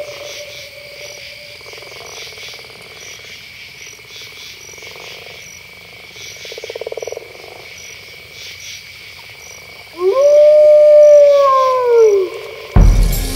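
Crickets and frogs calling steadily, with a short croaking trill about seven seconds in. Near the end a single long wolf howl rises briefly and then falls away, and music with a drum hit cuts in just after it.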